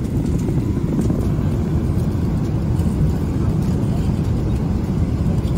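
Steady low rumble of a Boeing 777-300ER's cabin in flight: engine and airflow noise, even and unbroken.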